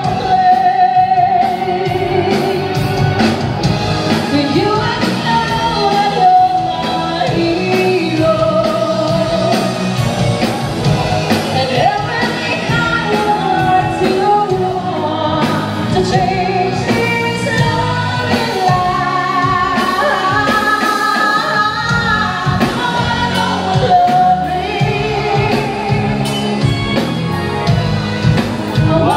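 Background music: a song with a lead singing voice over instrumental accompaniment.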